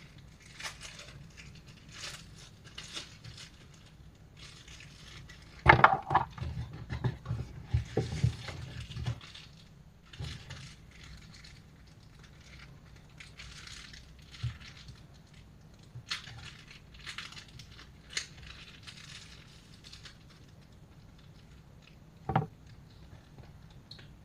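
Packaging and small parts being handled during an unboxing: scattered rustles, light clicks and taps. A louder run of knocks and rattling comes about six to nine seconds in, and a single sharp knock near the end.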